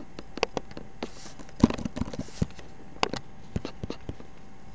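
Computer mouse clicks and keyboard keystrokes: short, sharp clicks at irregular spacing, with a quick cluster about a second and a half in.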